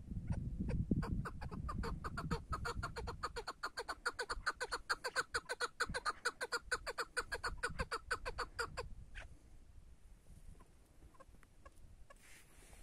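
Chukar partridge calling: a long, rapid run of short clucking notes, about six a second, that grows stronger and stops abruptly about nine seconds in.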